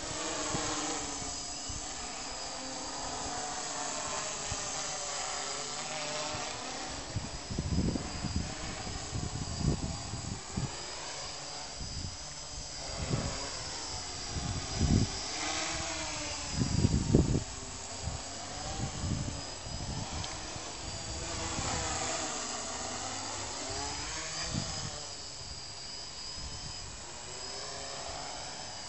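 MikroKopter quadrocopter's four brushless electric motors and propellers whining in flight, the pitch rising and falling over and over as the motors speed up and slow down to steer and hold it in the air. Short low rumbles come and go underneath.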